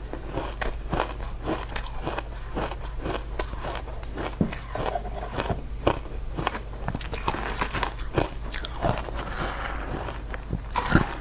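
A person biting and crunching ice close to the microphone: sharp, crisp cracks a few times a second, the loudest near the end, over a steady low hum.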